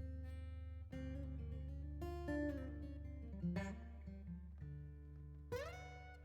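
Background music: acoustic guitar strumming chords over a steady bass, with a slide between notes near the end.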